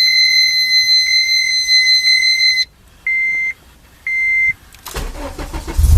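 An electronic warning buzzer in the car sounds a long steady high beep and then two short beeps as the ignition is switched on. Near the end the starter cranks briefly and the Honda Civic Si's modified four-cylinder engine, fitted with an aftermarket exhaust and header, catches and runs with a deep rumble.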